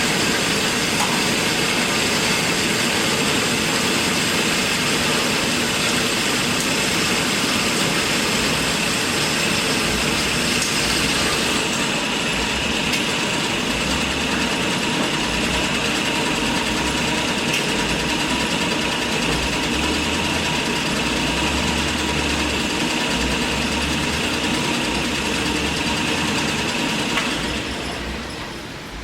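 Kalamazoo 13AW horizontal band saw running with a steady high whine. The upper hiss thins about eleven seconds in, and the machine winds down near the end.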